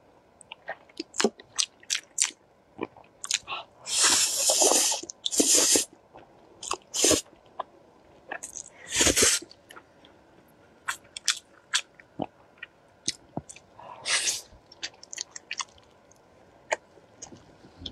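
Close-miked eating: wet chewing and mouth smacks as many quick clicks, broken by about four longer noisy slurps of instant noodles, the loudest near 4 and 9 seconds in.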